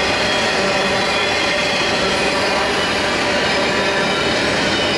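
Double-stack intermodal freight train's well cars rolling past: a steady, loud noise of steel wheels on the rails, with faint steady squealing tones above it.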